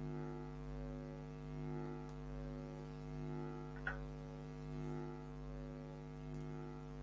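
Steady low electrical hum made of several steady tones, swelling and fading slowly about every one and a half seconds. A single sharp click comes about four seconds in.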